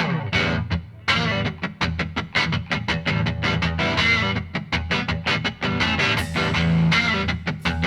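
Music led by guitar, with a quick, steady run of picked notes over a low bass line.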